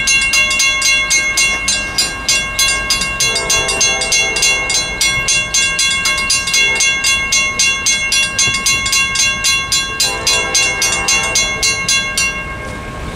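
Western-Cullen-Hayes mechanical crossing bells ringing with rapid, even strokes, cutting off about twelve seconds in once the gates are down. A distant train horn sounds twice under the bells, about three seconds in and again about ten seconds in.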